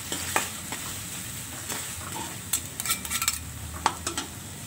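Tomatoes and chillies sizzling in a wok while a metal spatula stirs and scrapes them, with sharp clicks of metal on the pan, most of them between about two and a half and three and a half seconds in.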